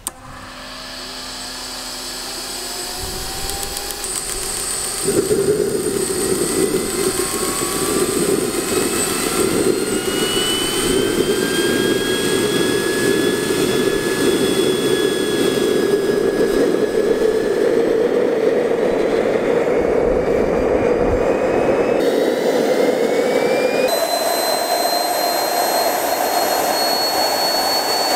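Kingtech K140 G2 model jet turbine starting up. A whine rises as it spins up, then about five seconds in a loud rushing noise sets in as the burner lights. The whine keeps climbing slowly, and near the end it settles into a high, steady turbine whine over the rush.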